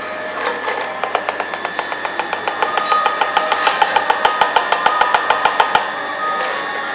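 Rapid, rhythmic metal clicking of a cocktail shaker tin and strainer while double-straining a thick egg-white cocktail, about five clicks a second, growing louder and stopping about six seconds in.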